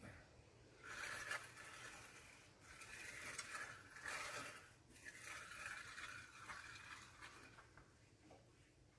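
Faint swishing noise of a pickup truck being washed, coming in several swells of a second or two.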